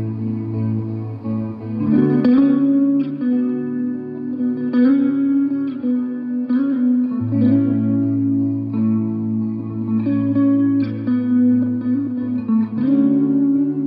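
Solo electric guitar played instrumentally: chords and notes struck every second or two and left to ring.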